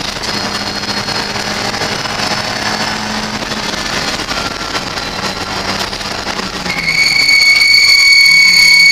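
Ford Fiesta race car's engine running, heard inside the cabin at speed; its pitch drops about two-thirds of the way through as the revs ease. Near the end a loud, steady, high-pitched squeal comes in and drowns the engine.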